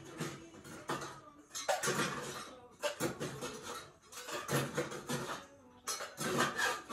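Ice cubes clinking and clattering as they are put into a glass, in several irregular bursts.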